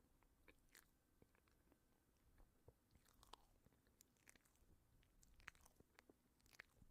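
Faint, irregular crunching and crackling of crisp nacho chips, a scatter of small crisp clicks.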